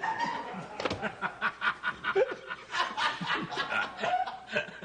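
A man laughing in many short, quick bursts.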